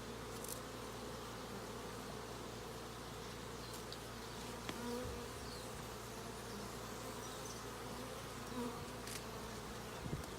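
Honey bees buzzing steadily around an opened hive, an even hum of many bees, with a few faint clicks.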